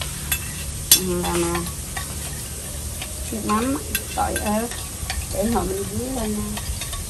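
Batter-coated pieces of cá khoai (Bombay duck fish) sizzling as they deep-fry in hot oil, with a sharp click about a second in.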